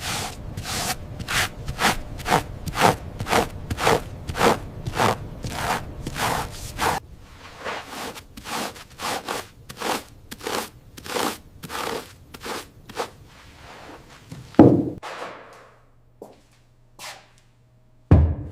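A quick, even series of sharp clicks or knocks, about two to three a second, that grows softer and sparser after about seven seconds, followed by a single loud thump about fifteen seconds in and another hit near the end.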